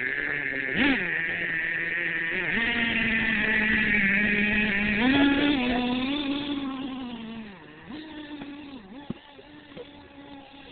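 Traxxas T-Maxx RC monster truck's small two-stroke nitro engine revving in short blips, then held at high revs as a steady buzz with small dips and rises in pitch. About two-thirds of the way in it grows fainter, with a few more brief blips.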